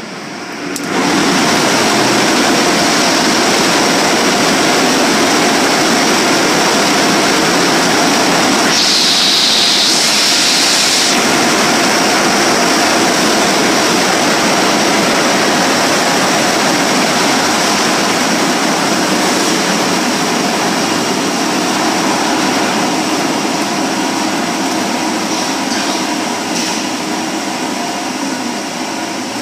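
Car wash air-drying blowers running: a loud, steady rush of air that comes in suddenly about a second in, with a sharper high hiss for a couple of seconds about nine seconds in.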